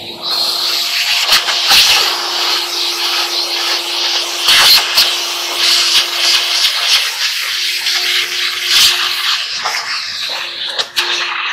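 Vacuum cleaner running with a steady motor whine under the rush of suction, the wand sucking lint out of a clothes dryer, its nozzle now and then knocking and scraping against the dryer's parts.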